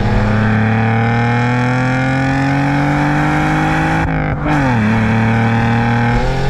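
BMW E46's exhaust, fitted with a cat-back system and a Valvetronic Designs valved muffler, under hard acceleration: the revs climb steadily for about four seconds, fall at a gear change, then build again in the next gear.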